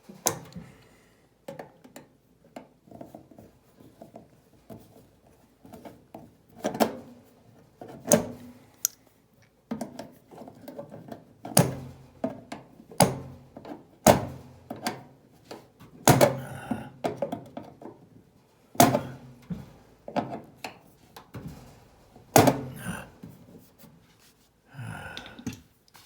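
Irregular clicks and knocks of a screw being tightened into a space heater's metal housing with an Allen wrench, with several louder knocks spread through.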